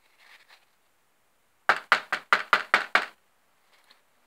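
A card collagraph plate covered in glued sawdust tapped against the tabletop about eight times in quick succession, knocking the loose sawdust off its surface. A brief faint rustle comes just before the taps.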